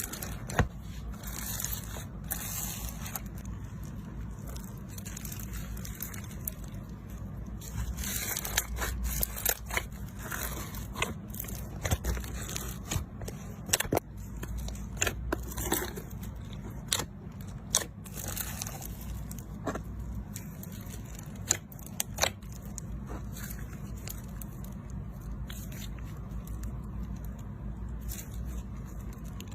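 Slime being squeezed and poked by hand, giving crackling pops and sharp clicks that are thickest through the middle, over a steady low hum.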